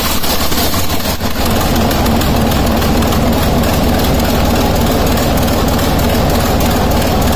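Six-cylinder locomotive diesel engine running steadily at idle, on a test run after experimental piston rings were fitted.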